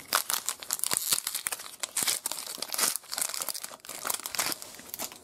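A foil trading-card pack being torn open and its wrapper crinkled and crumpled, a dense run of irregular crackles that dies away near the end.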